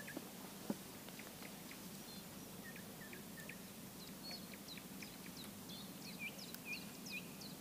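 Faint birdsong: scattered short, high chirps from small birds, coming more often in the second half, with one soft click under a second in.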